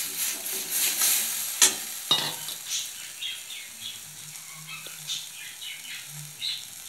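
Spice paste of onion, ginger-garlic-chilli and tomato sizzling in oil in a metal kadai while a metal spatula stirs and scrapes it, with scattered clicks and a sharp knock about a second and a half in. The masala has been fried down until the oil separates.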